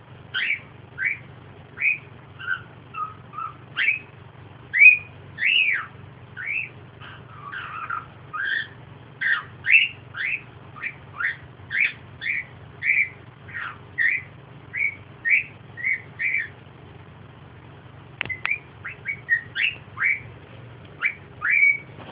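A pet bird chirping and whistling in a run of short, quick calls, about two a second, with a pause of a couple of seconds near the end. A steady low hum runs underneath.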